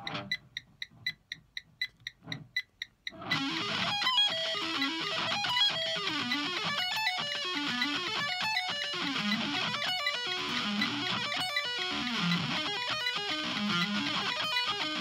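Metronome clicking about four times a second. About three seconds in, an electric guitar through a Line 6 combo amp comes in with fast sweep-picked arpeggios that run up and down over and over, played loosely and not quite in time, with some notes dropping out.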